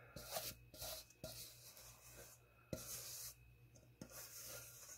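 Spatula scraping thick oat dough out of a metal mixing bowl: faint, repeated scraping strokes with a few light knocks against the bowl.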